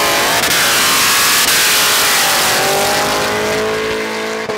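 Car engine revving hard and held at high revs during a burnout, with a loud hiss from the spinning tyres.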